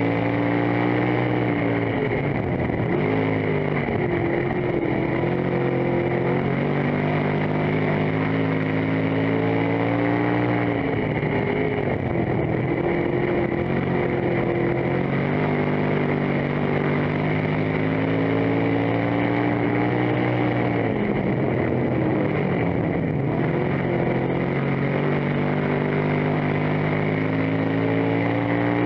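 Dirt-track race car's engine heard from inside the cockpit at full race speed. Its pitch falls as the driver lifts for each turn and climbs again down the straights, several times over.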